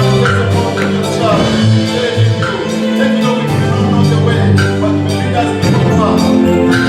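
Upbeat gospel music with a steady beat and bright keyboard or mallet-like melody notes.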